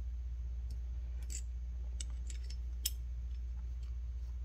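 A few faint metallic clicks as the M4's bolt is worked by hand into its bolt carrier, over a steady low hum.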